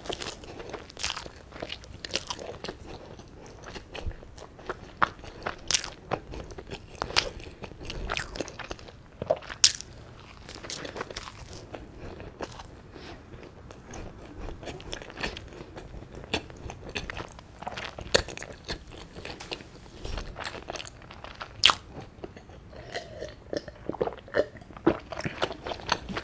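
A mouthful of plain white bread being bitten and chewed close to the microphone, with irregular sharp mouth clicks throughout.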